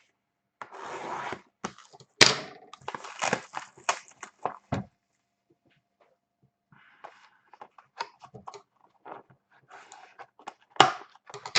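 A sealed box of trading cards being opened: plastic shrink wrap torn off and crinkled, and the cardboard handled. There is a sharp snap about two seconds in, crinkling and rustling, a short quiet pause midway, then more crinkling and a knock near the end.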